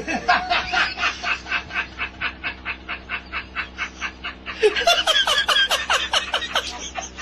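Human laughter in rapid, even pulses of about five a second, breaking into a louder, higher-pitched burst about four and a half seconds in and then easing off.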